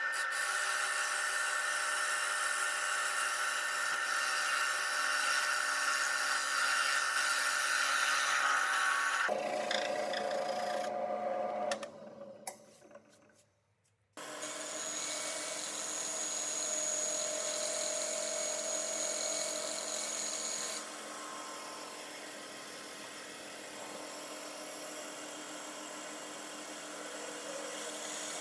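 Electric woodworking power tool running steadily while working wood. It winds down to a brief stop about halfway through, then starts again and runs on.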